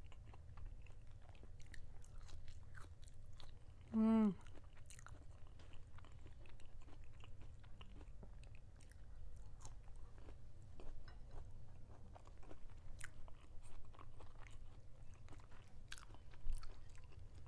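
Close-miked chewing of cayenne-seasoned butternut squash fries dipped in ranch, with many small wet mouth clicks. About four seconds in there is a brief hum of voice.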